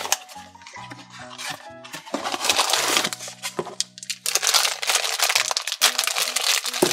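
A cardboard blind box being opened with a few sharp clicks, then a black foil blind bag crinkling steadily as it is pulled out and torn open, over background music.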